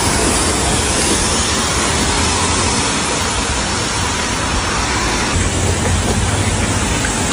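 A steady, loud rushing noise with a fluctuating low rumble underneath.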